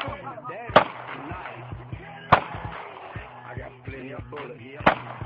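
Three gunshots, the second about a second and a half after the first and the third about two and a half seconds later.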